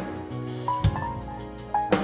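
Sparse drum-kit playing over melodic music: held, stepping notes, with two sharp drum hits, one a little before a second in and one near the end.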